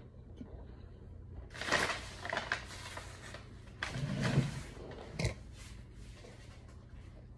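Rustling and knocking as someone moves about and gets up from a table, with a dull thump about four seconds in and a sharp click a second later.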